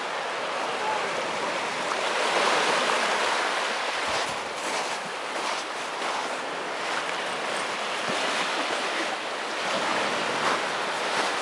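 Small sea waves breaking and washing up a sand-and-shingle shore, a steady rush that swells and eases as the waves come in.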